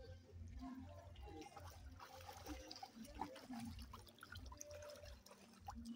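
Faint water splashing and lapping as a child paddles with her arms in a swimming pool.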